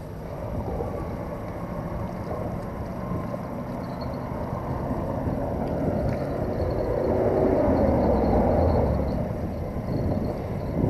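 Wind buffeting the camera microphone: a steady, rough low rumble with no engine tone, swelling louder about seven seconds in.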